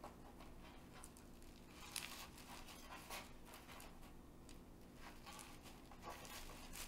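Very quiet: a knife slicing through crisped-rice cereal treats on parchment paper, heard as a few faint short crackles and scrapes over a low room hum.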